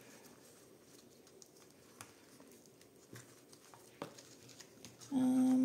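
Quiet handling of paper and card: a few light taps and soft rustles as folded paper flaps are pressed down around a cardboard journal cover. Near the end a short hummed "mm" from a voice.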